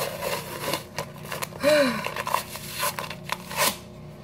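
Paper wrapper being peeled off a can of refrigerated biscuit dough, crinkling and tearing in a string of short bursts.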